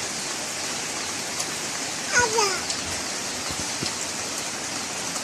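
Steady heavy rain falling, an even hiss throughout. A short call with a bending pitch cuts in briefly about two seconds in.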